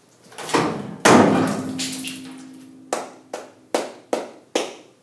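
Concrete beam strengthened with two layers of carbon fiber reinforced polymer (CFRP) breaking under the hydraulic actuator's load: a loud crack about half a second in, then a louder bang about a second in, followed by a ringing tone that fades over about a second and a half. Five sharp snaps follow, each about half a second after the last, as the beam keeps cracking. It is the destructive failure of the beam.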